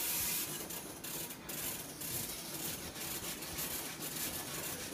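Exoskeleton robot arm's joint drives running as the elbow joint bends the forearm upward, giving a dense, scratchy, rasping mechanical noise made of many small irregular clicks. A hiss fades out in the first half second.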